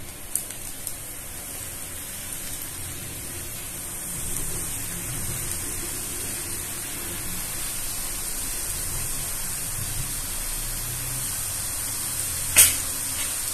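Fine chickpea-flour sev strands sizzling as they are pressed into medium-hot oil in a kadhai: a steady frying hiss that grows a little louder about four seconds in. A single sharp click near the end.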